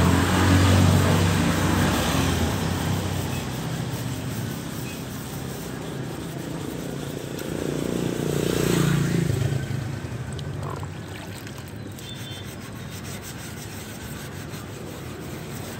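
Sandpaper on a hand block rubbing over body filler on a car bumper: a scratchy rubbing at the repair, coarse 100-grit paper cutting the filler down. Motor vehicles pass by, swelling at the start and again around eight seconds, and they are louder than the sanding.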